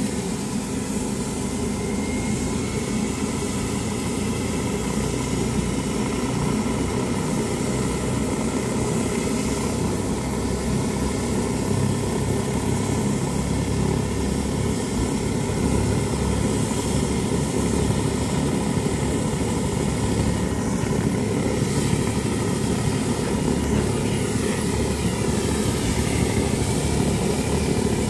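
Helicopter turbine engines running on the ground: a steady rushing drone that slowly grows louder, with a thin high whine rising in pitch near the end as the engines run up.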